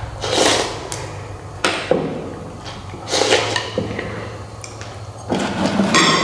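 Eating sounds at a table: a few sharp clacks of utensils against bowls, with short noisy slurps of instant noodles and broth.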